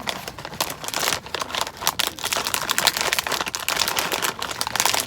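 Continuous close crinkling and crunching, a dense run of small crackles throughout.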